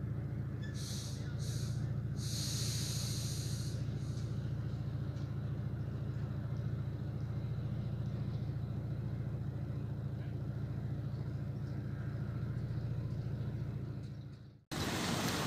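Engine idling with a steady low drone, with a few short hisses about one to four seconds in; the sound cuts off abruptly near the end.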